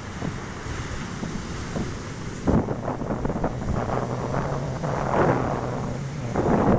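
Wind buffeting the microphone in gusts over the sound of the sea, with a sharp knock about two and a half seconds in and a steady low hum through the middle.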